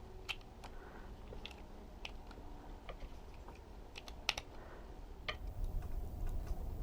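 Irregular light clicks and ticks of small plastic and metal parts handled while a toy RC truck's small electric motor is taken apart by hand, one sharper click a little after four seconds in, with a low handling rumble near the end.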